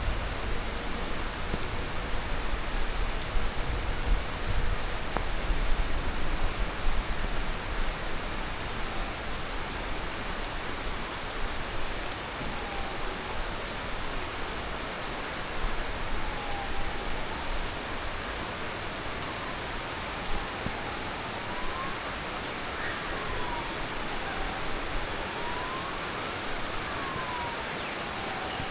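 Heavy tropical monsoon rain falling steadily, with a low rumble in the first several seconds. From about twelve seconds in, a faint siren wails up and down, about one cycle every three and a half seconds, and grows clearer toward the end.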